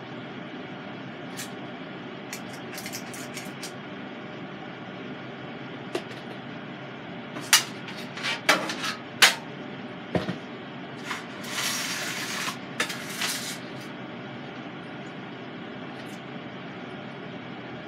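Kitchen handling noises: a handful of sharp knocks and clatters and a brief scraping rustle, bunched in the middle. Under them is the steady fan hum of a Cosori air fryer oven preheating on its bake setting.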